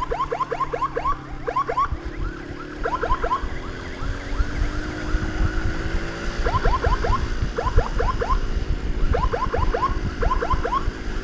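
Electronic emergency siren sounding in bursts of quick rising chirps, about five or six a second, cutting out and starting again several times, over a low rumble of motorcycle engine and wind.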